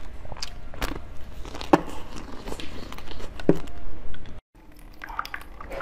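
Close-up biting and chewing of a coated ice cream bar, its hard shell crunching and cracking, with two sharper cracks about two and three and a half seconds in. The sound drops out briefly near the end, then comes back as softer clicks.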